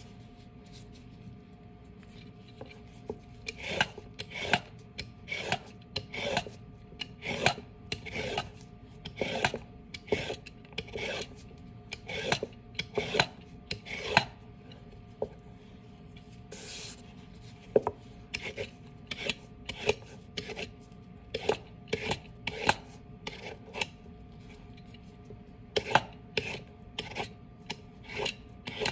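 Swivel-blade vegetable peeler scraping strips off a raw carrot, stroke after stroke at about two a second, in runs broken by short pauses.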